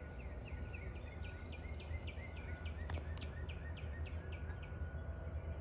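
Songbirds chirping: a quick run of short, downward-sliding chirps, about three a second, that thins out in the last second or so, over a steady low rumble and a faint thin steady tone.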